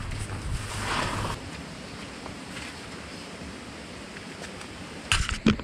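Steady rushing noise like wind on the microphone, with a low hum that fades after about a second and a half, and a few sharp knocks near the end.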